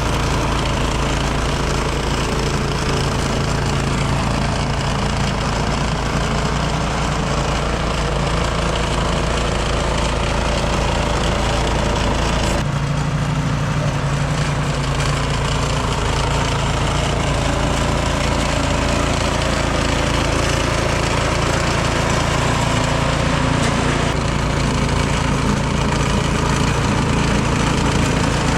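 Craftsman snowblower's gasoline engine running steadily under load while clearing snow; its note shifts a little about 13 seconds in.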